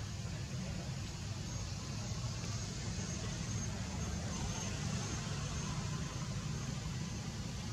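Steady outdoor background noise: a low rumble under a high, even hiss, with nothing sudden.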